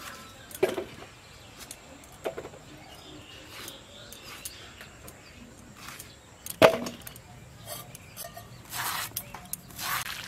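Knife cutting chunks of young raw pumpkin held in the hand, a few separate sharp crisp cuts and knocks, the loudest about two-thirds of the way through.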